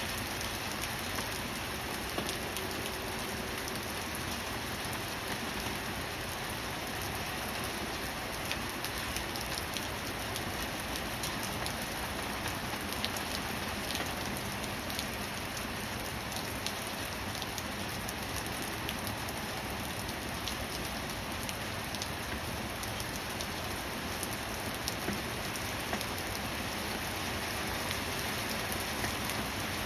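Steady rain falling: an even hiss with many separate drops ticking against a surface.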